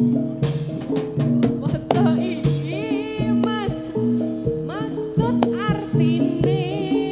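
Javanese gamelan music accompanying a jathilan dance: a repeating stepped melody on metallophones over regular drum strokes, with a singer's voice swooping above it.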